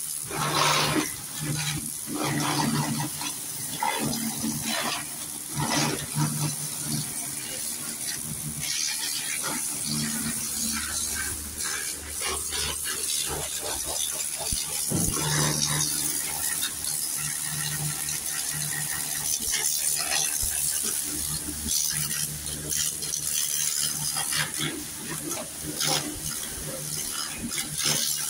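Water spraying or running in a workshop, a steady hiss over a low machine hum that swells and fades, with a few scattered knocks.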